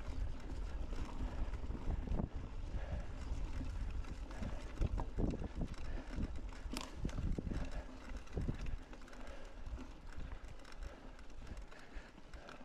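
Mountain bike riding over rough ground: wind on the microphone, tyre rumble and the bike rattling and knocking over bumps, easing off after about nine seconds.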